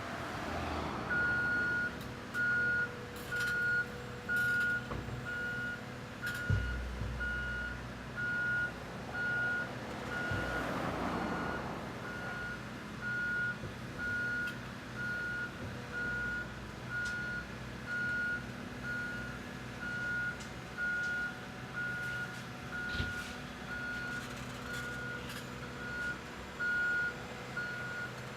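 Backup alarm beeping about once a second, one steady high tone, over a heavy diesel machine engine running steadily. A heavy low thud comes about a quarter of the way in.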